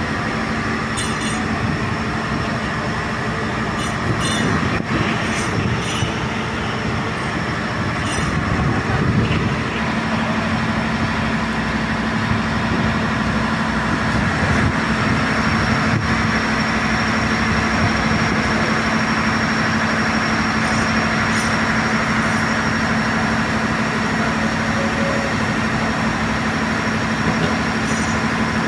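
Track-laying machine running, its chain conveyor carrying concrete railway sleepers along the top of the machine: a steady machine noise with a low hum and a high whine, and a few sharp clicks in the first several seconds.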